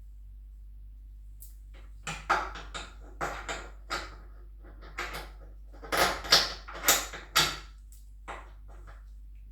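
A quick, uneven series of about a dozen hard knocks and clinks, as of tools and parts being picked up and set down, over a steady low hum. The knocks start about two seconds in and stop about a second before the end.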